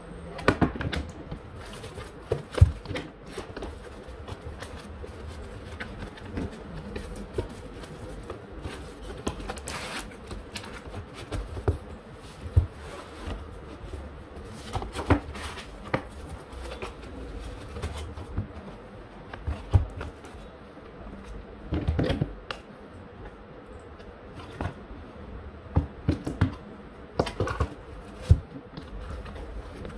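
Cardboard boxes and a small metal-cased network switch being handled on a desk: scattered knocks, taps and cardboard rustling as things are set down, moved and packed into foam-lined boxes, the sharpest knocks near the start.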